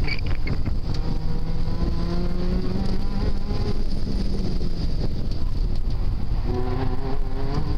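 Toyota MR2 Spyder's 1.8-litre four-cylinder engine running hard through an autocross run, heard from inside the car, its pitch rising and falling with the throttle.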